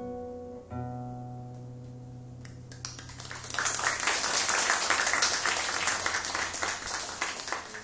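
Acoustic guitar's final chord strummed about a second in and left to ring out, then audience applause starting about three seconds in, louder than the guitar and fading near the end.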